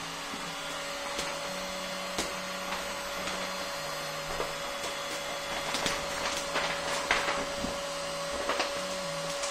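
Vinyl wrap film crinkling and crackling as it is pulled and stretched by hand over a bumper, the crackles coming thicker in the second half. Under it, a steady machine hum with a faint whine.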